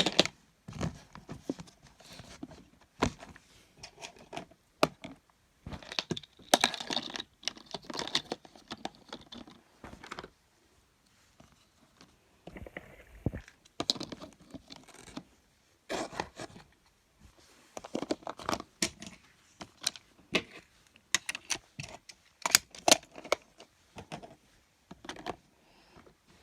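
Fidget toys being handled and sorted: irregular clicks, clatters and rustling, with a pause of a couple of seconds about ten seconds in.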